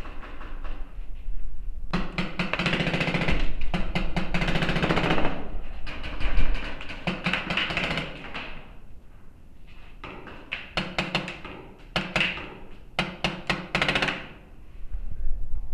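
Paintball markers firing rapid volleys of shots. One long run of fire starts about two seconds in, then several shorter bursts come from about the middle to near the end.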